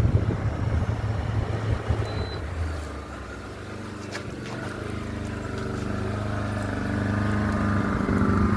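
3,600-watt portable generator running. Its engine note drops about three seconds in as the air conditioner's load comes off, then it settles into a steady, lighter running with no load on it.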